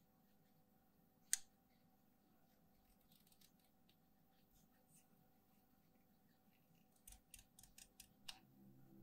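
Hobby knife blade cutting and scraping along the edge of a thin clear plastic part: faint scratching, one sharp click about a second in, and a quick run of clicks near the end.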